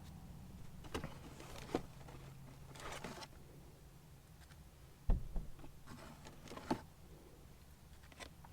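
Soft handling of food and packaging, with a few light clicks and rustles and one dull thump about five seconds in, as chicken nuggets are taken out and placed on a burger, over a steady low hum.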